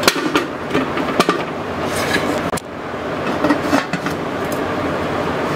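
Aluminium idli steamer clinking and knocking as cut potato pieces are set on its perforated plate and the domed lid is put on, a string of sharp metal clicks over a steady hiss.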